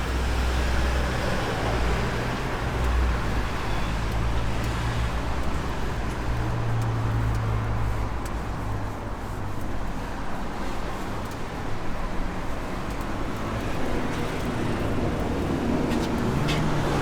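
Street traffic: a steady rumble of car and bus engines idling and passing, with a few light clicks near the end.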